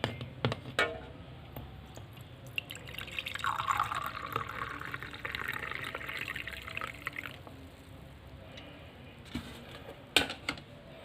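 Strained herbal decoction being poured, a steady stream of liquid from about three seconds in until about seven seconds in. A few sharp clinks come near the start and near the end.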